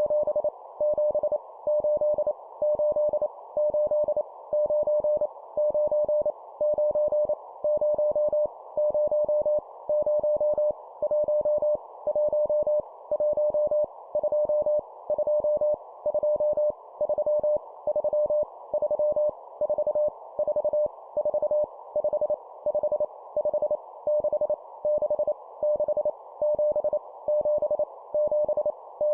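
Morse code (CW) sent as a single steady beeping tone, keyed on and off in quick groups of dits and dahs at 25 words per minute: digits sent for copy practice, each number repeated three times. A steady hiss like a receiver's filtered band noise runs underneath.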